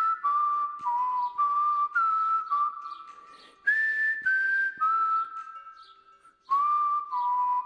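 Background music led by a whistled melody that glides between held notes, over a light clicking accompaniment. It fades away about six seconds in and starts up again half a second later.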